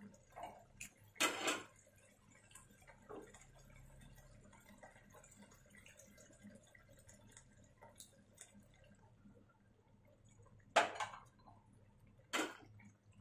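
Faint kitchen sounds from a wok of simmering prawn curry: a short clatter of the metal spatula about a second in, then water poured into the curry from a small steel mug. Two sharp knocks near the end as the mug is set down.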